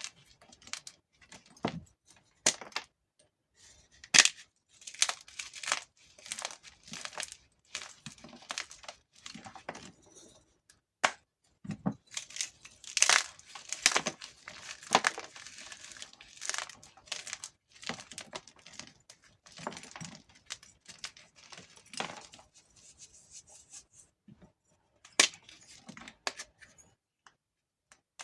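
Gym chalk being crushed between the fingers: crisp, crumbling crackles in irregular clusters, busiest in two stretches and thinning out to a few isolated cracks near the end.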